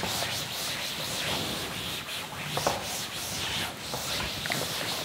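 A cloth duster rubbing chalk off a chalkboard in repeated wiping strokes, a steady scrubbing hiss.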